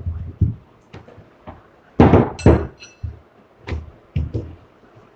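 Wooden rolling pin and wheat dough knocking on a floured board as the dough is rolled out and turned, a series of irregular knocks and thumps, the loudest pair about two seconds in.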